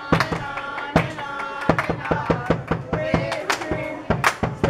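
A few waiters singing together, held sung notes over sharp hits on a marching drum and hand claps marking the beat.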